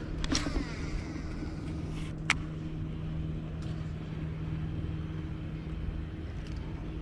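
Boat motor running with a steady hum. A brief whir comes about half a second in and a sharp click a little after two seconds.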